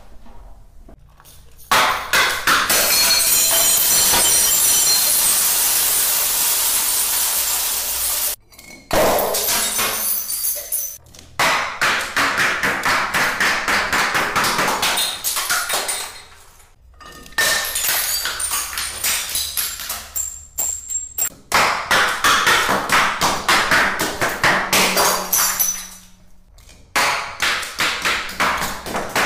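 Glass bottles and jars tumbling down tiled stairs, knocking against each step in quick runs of sharp clinks, with loud smashes as they break. About two seconds in, one loud crash is followed by several seconds of hissing, scattering noise.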